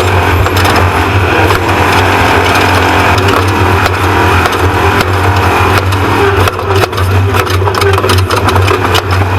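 Off-road race truck driven hard over rough ground: the engine drones steadily under a constant clatter of rattles and knocks from the truck bouncing over the terrain.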